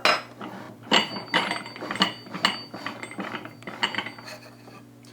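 Low-profile socket ratchet clicking in several short strokes, with pauses between them, as a steel shoulder bolt is lightly snugged into a bench anchor.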